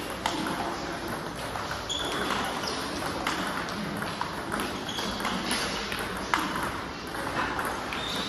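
Table tennis multiball drill: a coach feeding celluloid-type plastic balls in quick succession with a player hitting each one back, a steady run of sharp ball clicks off rackets and table, a few every second.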